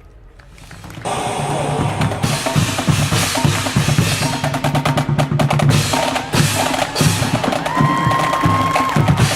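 Marching band playing, led by a percussion section of snare and bass drums with rapid strokes and rolls, coming in about a second in after a brief lull. A held instrumental note sounds over the drums near the end.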